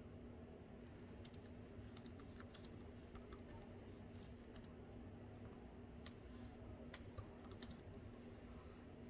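Typing on a laptop keyboard: soft, irregular key clicks beginning about a second in, over a faint steady hum.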